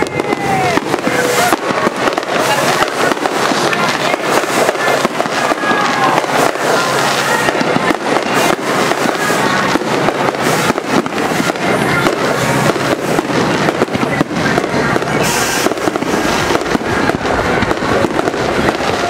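Aerial fireworks bursting in quick succession: a dense, unbroken run of bangs and crackles.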